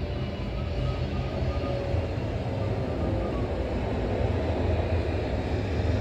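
Spotted dove cooing, a 'kuk 4' bird, in faint short low notes under a steady low rumble that is the loudest sound.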